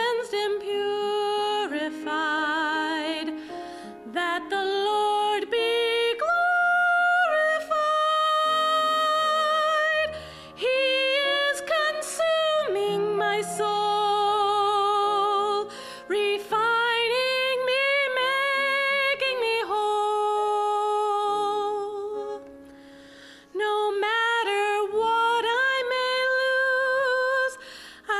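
A woman singing a slow hymn solo, with vibrato on long held notes and short pauses between phrases.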